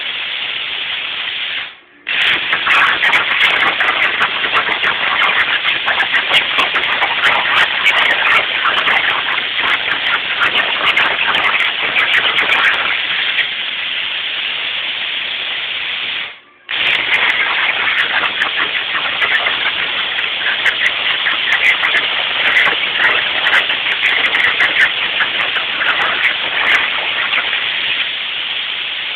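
CNC plasma torch cutting 1/8-inch steel plate: a loud, crackling hiss that drops out abruptly twice, once about two seconds in and once around the middle, and eases to a steadier, quieter hiss near the end.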